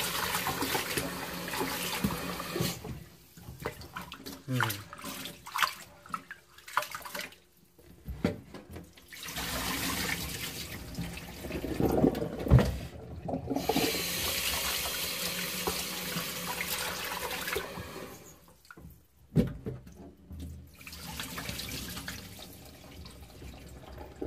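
Tap water running as rice is washed by hand. The flow stops and starts a few times, with short knocks in the gaps.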